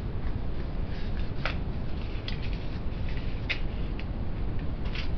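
Small products and packaging being handled: a few short, light clicks and rustles, about four in all, over a steady low background hum.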